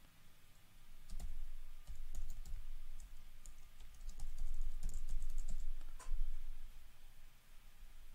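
Typing on a computer keyboard: a run of uneven keystrokes, with a sharper single click about six seconds in.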